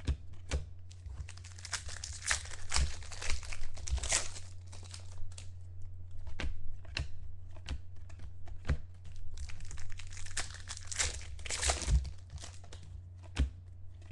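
Thick chrome trading cards being slid off a stack and flipped one by one, making irregular crisp clicks and rustling, heavier in two spells, over a steady low hum.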